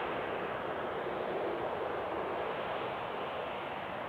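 Boeing 737's twin CFM56 jet engines at taxi power, a steady rushing noise with no clear whine or tones as the airliner rolls slowly past.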